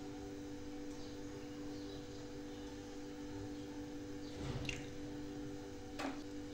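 Cooking oil poured in a thin stream from a plastic bottle into an empty clay pot, with a soft splash about four and a half seconds in and a sharp knock about six seconds in, over a steady hum.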